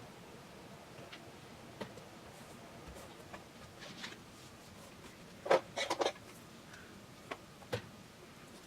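Scattered light clicks and taps, with a quick cluster of four or five louder knocks about five and a half seconds in.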